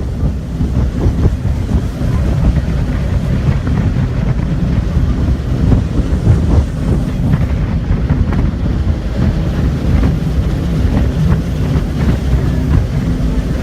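Tour jet boat's engine running steadily under way, with heavy wind buffeting the microphone.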